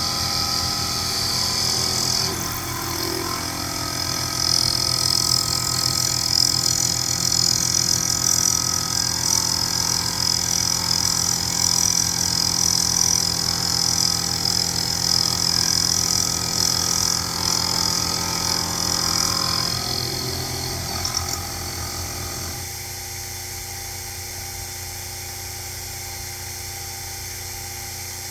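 Sherline milling machine running steadily while it cuts a keyway slot: a high-pitched cutting whine over the motor's hum. About 23 seconds in, the cutting whine drops away and the machine runs on more quietly.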